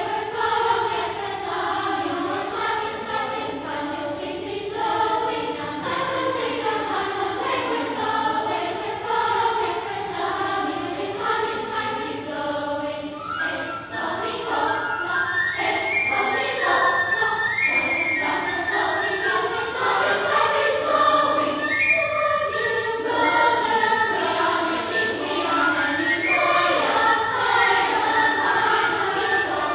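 Children's choir singing, many young voices together in sustained, flowing lines, growing louder about halfway through.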